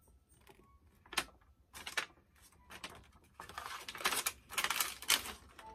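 Crinkly plastic toy packaging crackling as it is handled, in irregular bursts that grow busiest from about three and a half seconds in.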